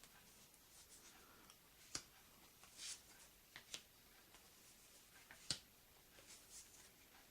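Game cards being handled and laid down one at a time: a few light taps and a short slide of card against card or table.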